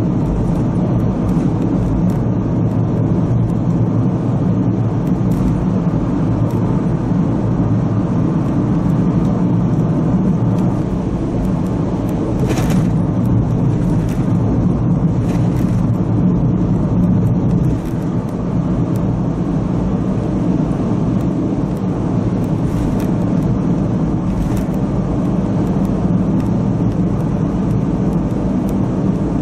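Steady road noise inside a car cruising on an expressway: engine and tyre noise in the cabin, with a few brief swells of hiss about halfway through and again later.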